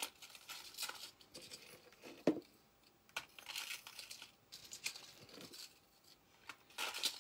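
Plastic packaging crinkling and rustling in irregular bursts as jewelry is unpacked and handled, with one short sharp knock a little over two seconds in.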